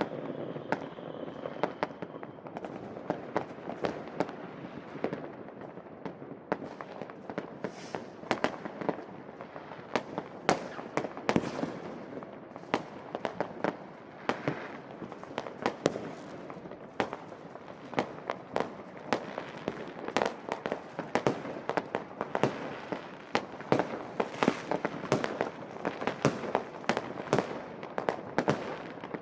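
Many private fireworks and firecrackers going off at once: a dense, continuous barrage of sharp bangs and crackles, several a second, over a steady background of distant explosions.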